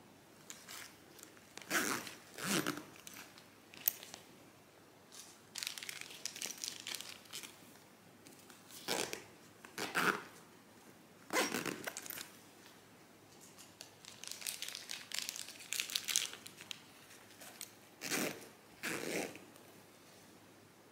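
Small nylon backpacks being handled: irregular bursts of fabric rustling and crinkling, with one sharp click about four seconds in.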